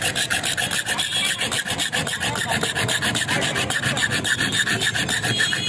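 Metal file rasping on a steel key blank in rapid, even strokes.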